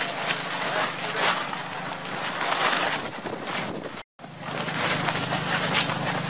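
Wind buffeting the microphone and flapping the plastic tent sheeting, with a steady low hum underneath; the sound drops out for a moment about four seconds in, then carries on.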